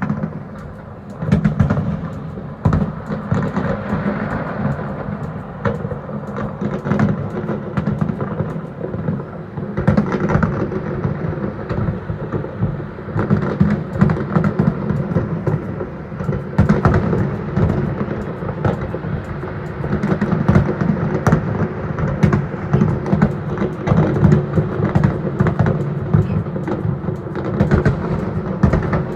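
Fireworks display: a dense, continuous barrage of booming and crackling shell bursts, with many sharp reports piling onto a steady low rumble.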